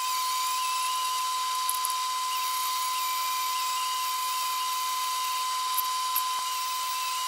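Die grinder spinning a 2-inch Pferd Victograin Combidisc, rough-grinding a weld on a 1-inch square steel tube corner with a steady high whine.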